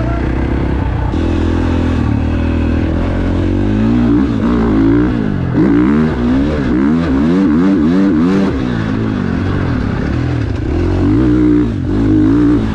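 KTM 450 SX-F motocross bike's single-cylinder four-stroke engine ridden hard, its pitch steady for the first few seconds, then climbing and dropping again and again as the throttle is opened and shut, and steadier again near the end.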